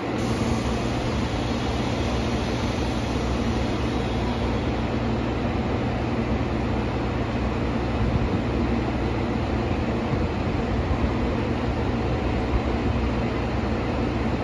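JR Kyushu 813 series electric train standing at the platform, its onboard equipment giving a steady low hum under a constant hiss.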